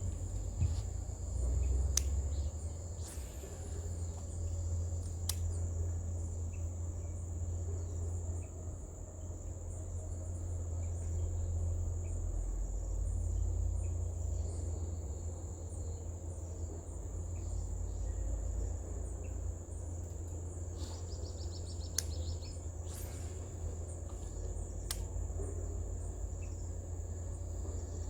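Insects, cricket-like, giving a steady high-pitched drone, over a constant low rumble. A few sharp clicks and one short rapid run of ticks come through, the run about three quarters of the way in.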